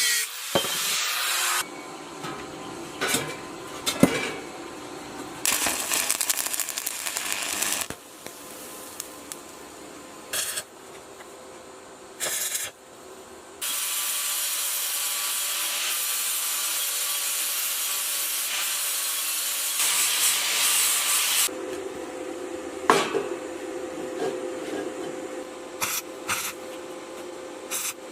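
Hand repair work: rubbing and scraping sounds in several separate stretches, with scattered sharp knocks and a long steady hiss-like stretch in the middle.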